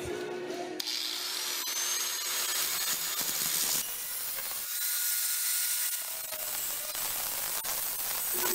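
Angle grinder with a cut-off disc cutting through a flat bar of forged spring steel clamped in a vise. The disc in the steel gives a steady high hiss with a faint whine, starting about a second in.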